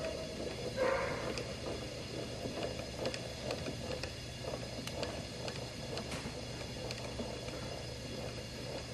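Steady low background hum with scattered faint clicks and light handling noise, with a slightly louder rustle about a second in.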